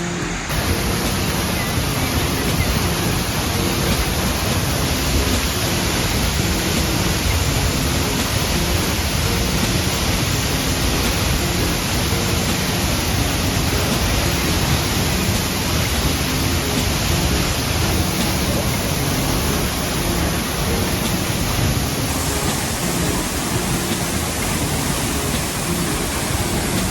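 Waterfall pouring close by: a steady, dense rush of falling water that holds unchanged throughout.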